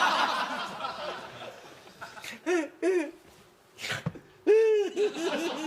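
A man's loud, exaggerated snoring: a breathy rasp at the start, then short voiced snorts, and a loud drawn-out voiced snore about four and a half seconds in that breaks into quick pulsing snorts.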